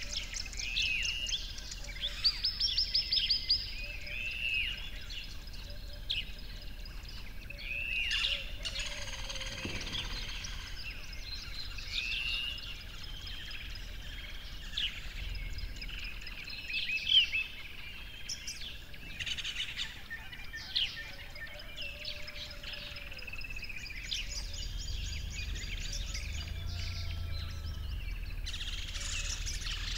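Several birds chirping and calling, many short, overlapping chirps and rising and falling calls, with a faint low rumble beneath.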